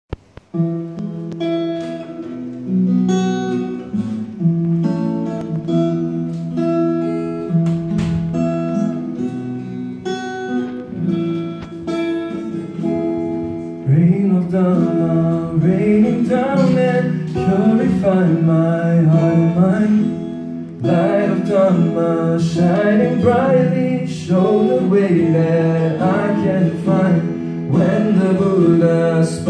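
Acoustic guitar playing an intro on its own, then a man starts singing over the guitar about halfway through.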